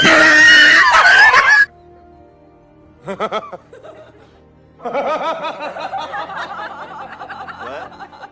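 A loud comic sound effect for the first second and a half, then faint background music. A short vocal burst comes about three seconds in, and from about five seconds in there is a long stretch of snickering laughter.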